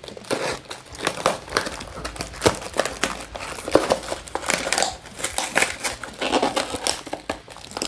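Small cardboard box being handled and opened by hand, its flaps crinkling and scraping in a dense run of irregular crackles and rustles.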